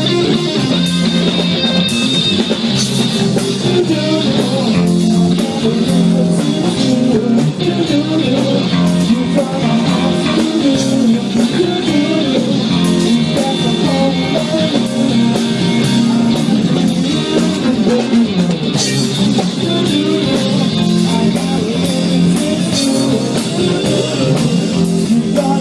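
Live band playing: a guitar melody over bass and a drum kit, without pause.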